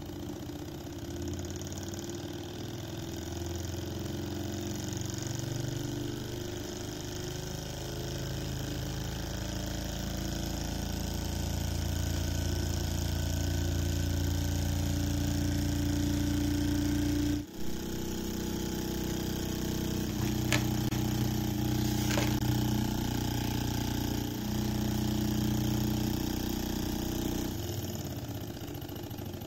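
Small hot-air Stirling engine model running steadily on its alcohol-burner flame, its flywheel belt-driving a little DC motor as a generator: a continuous mechanical whir and clatter. The sound breaks off briefly a little past halfway, and a couple of sharp clicks follow a few seconds later.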